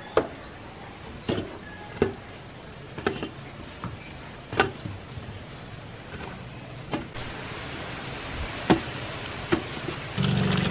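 Green saba bananas knocking against the side of a metal cooking pot as they are handled and washed, a sharp clack every second or so with a little ringing from the pot. Near the end, water starts running hard into the pot.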